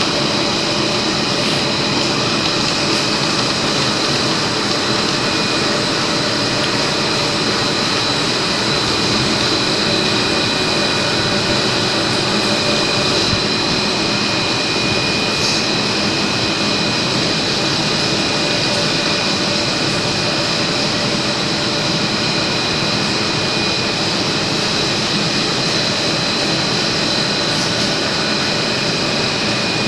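Polyethylene food cling film production machine running: a steady, even machine noise with a constant high whine over it.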